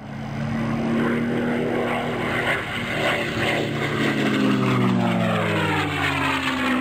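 Propeller airplane engine droning, its pitch sliding down in the second half as it goes past.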